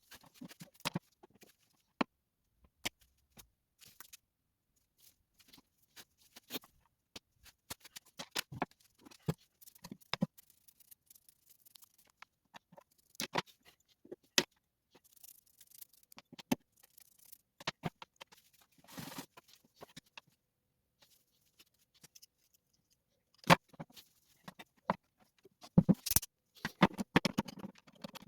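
Garden shears being handled: irregular metal clicks and short scrapes, with brief pauses between them and a busier run of clicks near the end.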